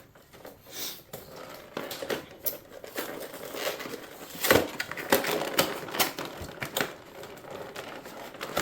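A cardboard trading-card collection box being worked open by hand: irregular clicks and taps with crinkling of cardboard and plastic packaging, a few louder knocks in the middle.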